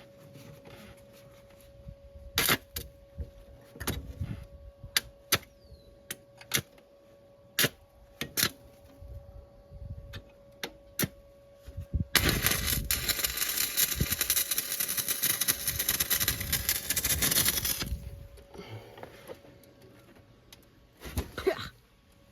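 Electric arc welding on a steel bracket: a steady crackle for about six seconds, starting about twelve seconds in. Before it come scattered clicks and knocks of metal parts being handled and positioned.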